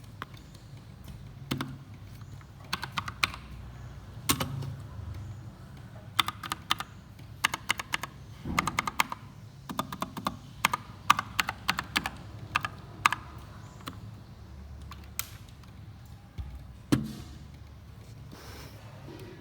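Typing on an Akko 3068 Silent mechanical keyboard: uneven bursts of key clicks, busiest in the middle, then a pause and a single louder key strike near the end.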